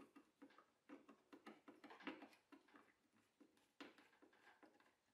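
Near silence, with faint, irregular small clicks and taps.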